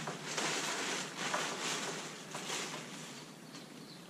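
Blue plastic tarp rustling and crinkling in a series of short bursts as it is hauled up a small boat's mast on a halyard, hoisted as a makeshift test jib.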